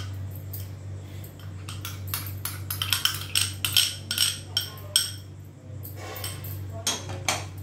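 Spoon clinking and scraping against a dish as a thick paste is spooned in. It is a run of irregular clinks, with the louder ones about three, four and five seconds in.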